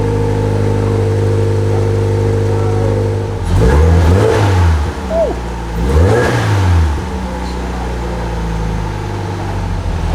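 2014 Subaru BRZ's flat-four engine idling steadily, then revved twice, each rev rising and dropping back, before settling back to idle.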